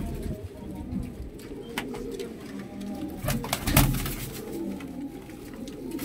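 Several domestic pigeons cooing, with a few sharp clicks around the middle.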